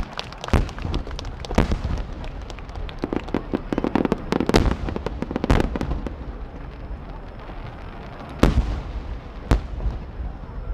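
Aerial fireworks bursting in a rapid series of sharp bangs, thickening into a dense crackling barrage in the middle, then two loud single bangs near the end.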